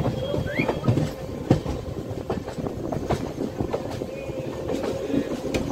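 Passenger train coaches' wheels running over rail joints and points, giving irregular clicks and knocks over a steady hum.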